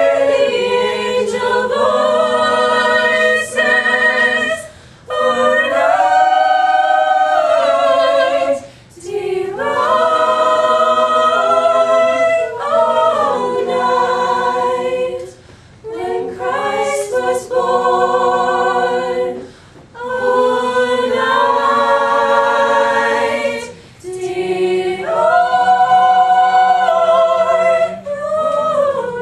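A small mixed-voice a cappella choir singing slow, held chords in phrases of a few seconds each, with brief breaks between phrases.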